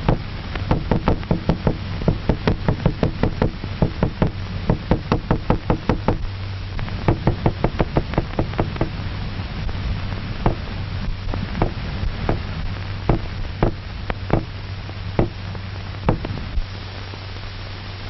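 A small hammer knocking repeatedly on a hard surface: a fast run of about four or five knocks a second, then slower single knocks about a second apart that stop shortly before the end. A steady low hum and hiss from an old film soundtrack runs underneath.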